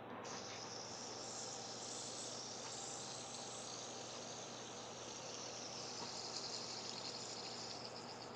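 Fidget spinner whirring on its bearing while spinning between the fingers: a faint, steady high-pitched whir with a slight flutter.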